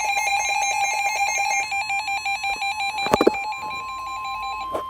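Emergency Alert System alert signal: a rapidly pulsing electronic multi-tone buzz that slows to separate pulses, a sharp click about three seconds in, then a steady two-tone attention signal.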